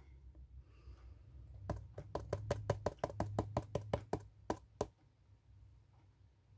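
Clear plastic box being tapped and knocked in a quick run of light taps, about five or six a second, as excess gold embossing powder is shaken back into its jar. The tapping starts a little under two seconds in and stops about five seconds in.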